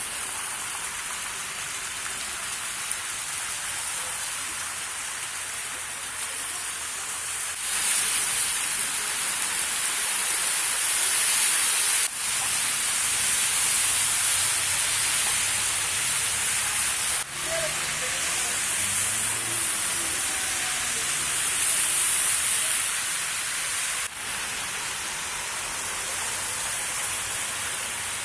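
Steady hiss of rain and water on a flooded street, with cars driving through the shallow floodwater. The sound drops out for a moment several times where clips are joined.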